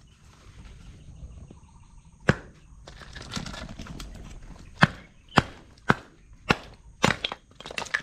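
Pine offcuts being split into kindling with a hatchet blade. It gives a series of sharp wooden knocks, one a couple of seconds in, then about seven more roughly every half second from nearly five seconds in.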